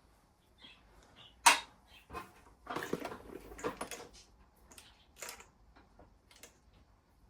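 Handling noises from workbench wiring work: a sharp click about a second and a half in, then a second or so of rustling and small knocks, and a few lighter clicks after that.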